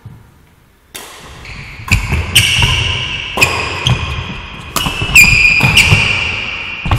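Badminton rally: a shuttlecock struck back and forth with rackets, a sharp crack every half second to a second, several followed by a brief high ringing, over thuds of footwork on the court floor.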